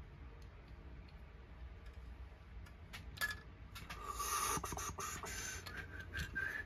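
Small parts of a die-cast Matchbox toy truck being handled and fitted by hand: scattered light clicks and taps, the loudest about three seconds in, then a brief scraping rustle a second later.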